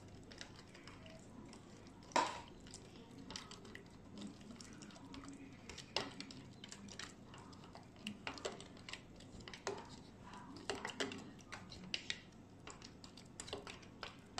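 A stirring utensil clicking and tapping irregularly against the sides of a measuring jug while gelatin is stirred into hot orange juice to dissolve it, with one louder knock about two seconds in. There is faint liquid stirring between the clicks.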